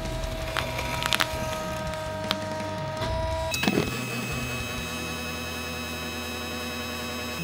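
Hydraulic press running with a steady motor whine while its ram squeezes crumpled plastic wrap. A few sharp crackles of the plastic come about a second in and again near the middle. The machine's tone changes about three and a half seconds in as the press changes phase.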